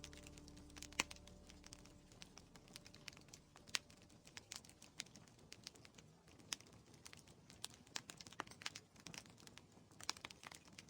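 Wood fire crackling in a fireplace: irregular, faint pops and snaps over a soft hiss.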